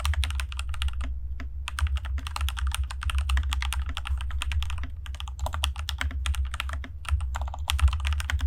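Fast, continuous typing on a home-built mechanical keyboard for a sound test: a dense run of key clicks with a couple of brief pauses, over a low steady hum.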